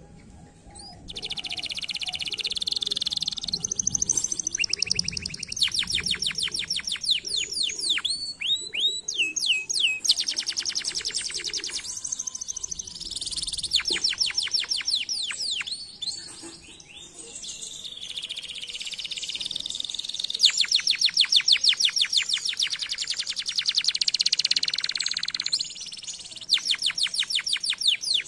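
Domestic canary singing a long song of rapid trills: runs of quick repeated notes and rolling, downward-sweeping notes, in phrases broken by short pauses.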